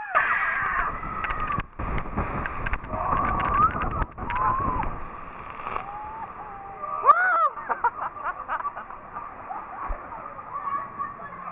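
Log flume boat plunging down a steep drop and crashing into the water, with rushing, splashing water and riders screaming. Another loud scream comes about seven seconds in, then the water keeps rushing under the boat.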